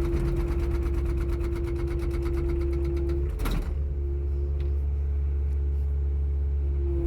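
Mini excavator's hydraulic breaker hammering rapidly for about three seconds, then stopping, over the steady running of the excavator's diesel engine.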